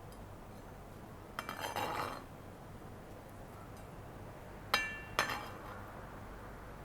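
Kitchenware clinking: a short rattle of clinks about a second and a half in, then two sharp, ringing clinks about half a second apart near the five-second mark.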